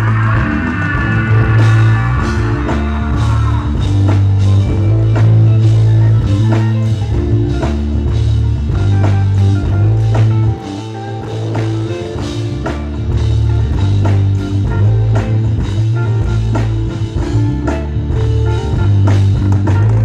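Loud music with a heavy bass line and a steady drum beat, guitar-like tones over it; a melodic line rises over the mix in the first few seconds, and the sound dips briefly about halfway through.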